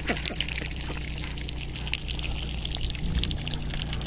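Water trickling and splashing as ducks dabble their bills in shallow muddy puddles, with many small quick splashes over a steady low hum.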